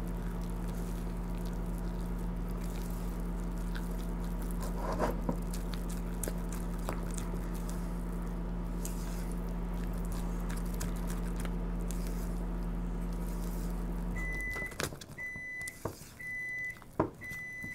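Microwave oven running with a steady hum that stops about 14 seconds in, followed by four short high beeps signalling the heating cycle is done. Under it, a spoon stirs batter in a bowl with scattered light clicks and scrapes.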